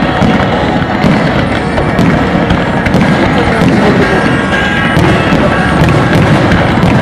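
Fireworks display with many overlapping bangs from aerial shells bursting in quick succession, over loud music played with the show.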